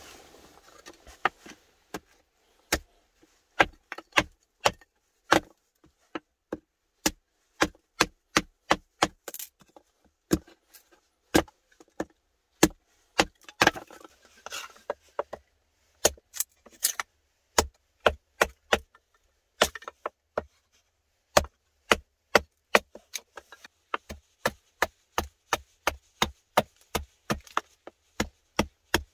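A large knife splitting thin wooden boards into kindling: repeated sharp knocks of the blade on wood, about one a second at first and quickening to two or three a second in the second half.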